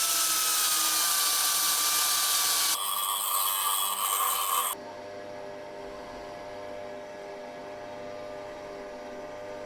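A power tool cutting through steel threaded rod: a loud, harsh grinding with a whine that sags slightly under load. The sound changes about three seconds in and stops abruptly just before five seconds. A quieter steady hum follows.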